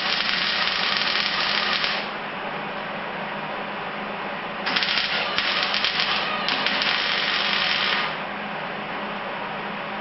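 MIG welder arc crackling in short runs on thin sheet steel: one run ending about two seconds in, then three more in quick succession between about five and eight seconds. A steady low hum runs underneath.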